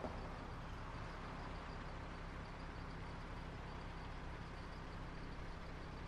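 Summer suburban street ambience: a steady low rumble of distant traffic, with a faint high note pulsing evenly above it.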